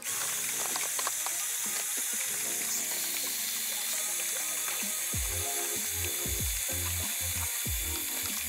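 Small wet/dry shop vacuum running steadily with a loud airy hiss as its hose nozzle sucks dust from wooden drawer cavities; in the second half, irregular low thuds come through.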